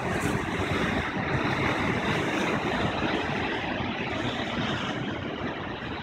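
Atlantic surf breaking and washing over rocks, a steady rushing of foaming water that eases a little near the end.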